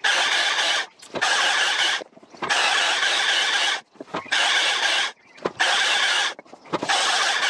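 STIHL MSA 300 battery chainsaw cutting through logs on its standard power setting, heard as six short runs of about a second each that start and stop abruptly.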